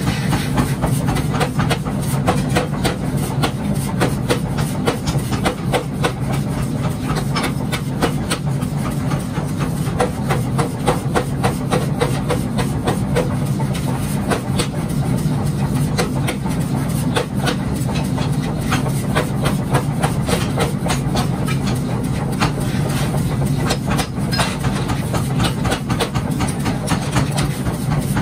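A 1950 power hammer pounding a glowing steel billet in a rapid, steady run of blows, forging a sledgehammer head, with a steady low machine hum underneath.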